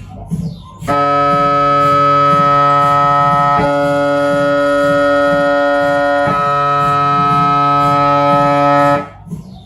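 Siemens Magnetom Avanto 1.5 T MRI scanner's gradient coils sounding a loud, steady tone with many overtones during a scan sequence. It starts about a second in, breaks with a short click twice, and stops shortly before the end.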